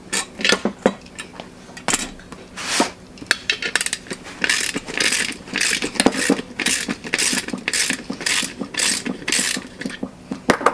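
Flex-head socket ratchet clicking on its back strokes as it is swung back and forth, about two strokes a second from the middle onward, loosening a tight threaded fitting in a steel pressure tank lid. Before that come a few separate metal clinks and knocks from the tools.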